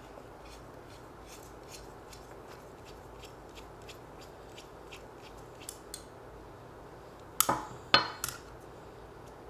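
Metal tool handling on a Glock pistol slide while fitting the Glock front sight tool to remove the front sight: faint light ticking and scraping, then three sharp metallic clicks in quick succession near the end.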